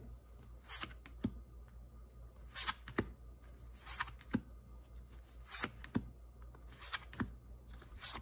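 Star Trek: The Next Generation card game cards being flicked through by hand, each card sliding off the deck with a short papery swish or snap, irregularly about once a second.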